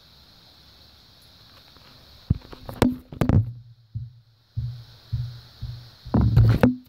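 Handling noise on a phone's microphone: after a couple of quiet seconds, a run of loud knocks and rubs as something covers and bumps the phone, with short low hums between them and a dense cluster of knocks near the end.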